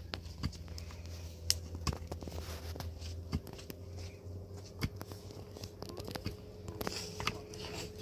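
Scattered light knocks and clicks over a faint steady hum that fades about halfway through.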